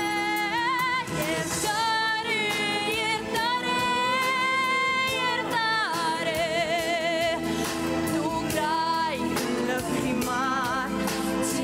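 A young woman singing solo into a handheld microphone over musical accompaniment, holding long notes with a wavering vibrato.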